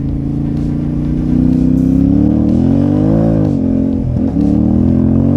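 Yamaha Ténéré 700's parallel-twin engine pulling under throttle while riding: the revs climb, ease off about three seconds in, break briefly about four seconds in, then climb again before the sound drops off at the end.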